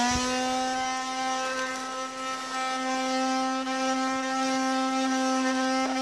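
Small 12-volt handheld in-car vacuum cleaner running, its motor settling to full speed right at the start and then holding a steady, even whirring hum.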